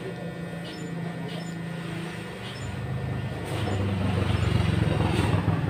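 An engine running steadily, a low hum that grows louder about three seconds in.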